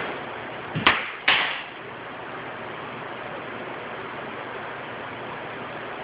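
Pneumatic flooring nailer firing twice, about half a second apart, a second in: each a sharp bang with a short air-release tail as it drives a nail into a solid hardwood floorboard.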